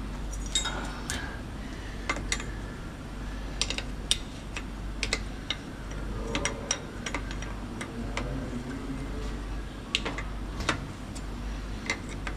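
Irregular sharp metallic clicks and clinks of tools and metal parts being handled, a few taps every second or so with no steady rhythm.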